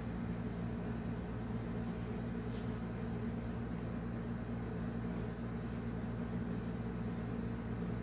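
Steady low background hum, with a brief faint hiss about two and a half seconds in.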